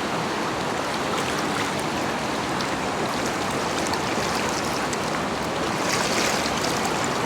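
Shallow, fast stream water rushing steadily over rocks, a little louder for a moment about six seconds in.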